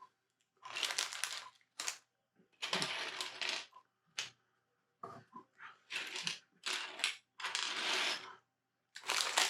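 Loose plastic Lego pieces rattling and clattering against each other and the table, in a run of short separate bursts with brief pauses between them.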